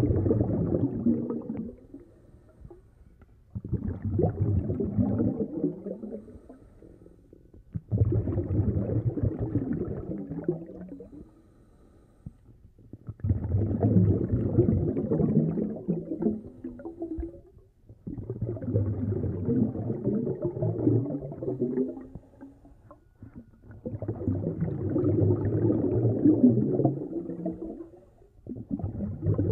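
Scuba diver breathing through a regulator, with exhaled bubbles coming in regular bursts about every five seconds, each lasting three to four seconds.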